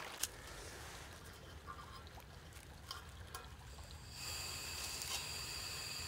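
Faint trickle of a small woodland creek with a few light clicks. About four seconds in, it cuts abruptly to a steady faint hiss with a thin high-pitched whine.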